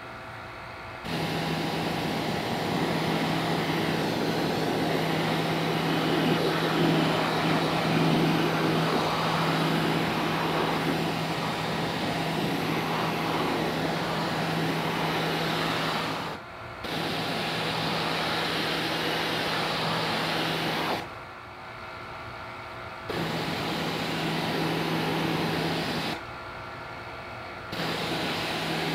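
Sun Joe SPX-9009-PRO electric pressure washer running, its motor humming steadily under the hiss of a water jet blasting grease off a metal kitchen exhaust hood filter. The spray and motor start about a second in, cut out for a moment about halfway, and stop twice for about two seconds near the end.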